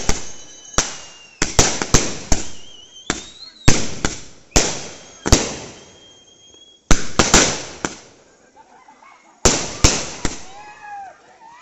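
A 240-shot aerial firework cake (flower shots) firing, its shells bursting in a rapid string of sharp bangs. Thin whistling tones rise between some of the bursts. There is a short lull after about eight seconds, then three more bangs.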